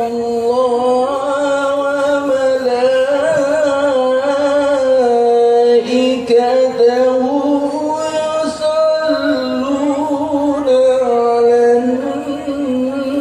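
A man singing a sholawat, an Islamic devotional song, solo, with long held notes and wavering melismatic ornaments.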